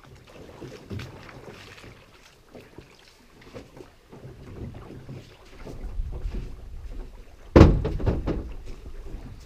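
Wind rumbling on the microphone over small knocks and splashes of someone wading beside a small aluminum boat, with one loud thump late on.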